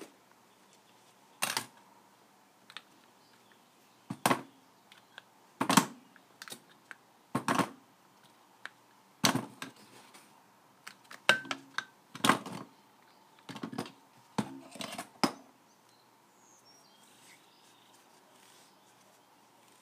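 Spring clamps being unclipped from a flywheel one at a time and set down on a sheet-metal bench: a series of about nine sharp clacks and clatters, some coming in quick clusters, that stop about three-quarters of the way through.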